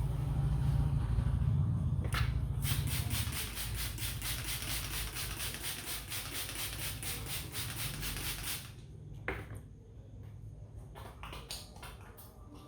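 Hands working a customer's head in an Indian barbershop head massage. A low rubbing comes first, then about two seconds in a rapid run of rhythmic slaps or taps, several a second, lasting about six seconds and stopping abruptly, followed by a few scattered clicks.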